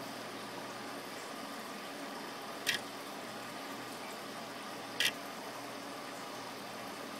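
The DVD-drive stepper motors of a homemade laser engraver running steadily as they move the laser along its path. Two brief, sharp, high-pitched buzzes stand out, one a little under three seconds in and another about two seconds later.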